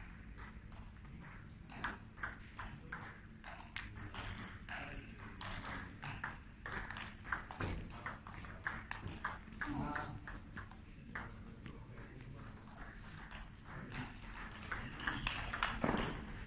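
Table tennis rallies: the ball clicking sharply off the bats and bouncing on the table in quick runs of strokes, with a brief lull between points.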